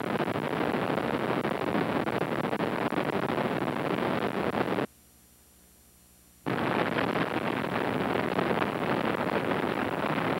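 Helicopter in flight: steady rotor and engine noise. About halfway through it drops out to near silence for about a second and a half where the recording breaks, then resumes.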